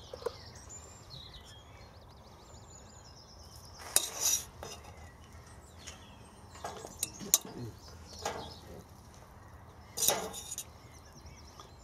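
A metal spaghetti server knocking and scraping against a stainless steel pot while spaghetti is lifted out: a few short, scattered clinks, the clearest about 4 seconds in and near 10 seconds.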